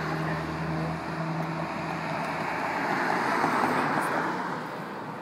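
Road traffic: a car passing by, its tyre and engine noise swelling about three seconds in and fading toward the end, over a steady low hum that stops about two seconds in.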